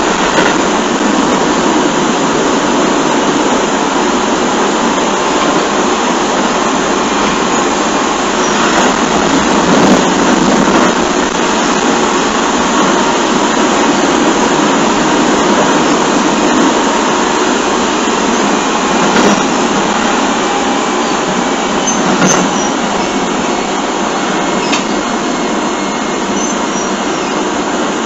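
Keio 7000 series electric commuter train with field-chopper control, running at speed between stations: a steady rumble of wheels on rail and traction-motor hum heard from inside the car, with a few brief knocks over rail joints. It is a low-fidelity flip-phone recording, dull and muffled.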